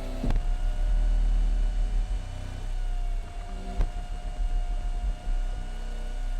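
Car audio subwoofers, driven hard by an amplifier under a 2-ohm load for a power test, playing deep bass that shifts in level every second or so. Two sharp knocks come through, one right at the start and one a little after halfway.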